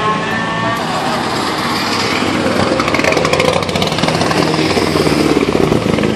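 Rally cars' engines running at low revs as the cars drive slowly past one after another, a loud, rough exhaust note. From about the middle on, an exhaust pulses in a choppy, uneven rhythm.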